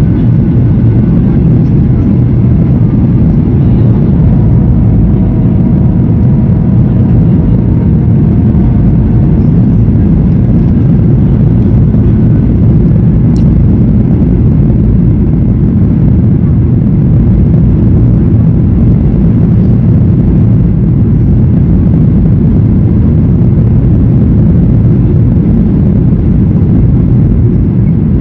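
Steady low rumble of a Boeing 737's jet engines and the airflow, heard inside the passenger cabin.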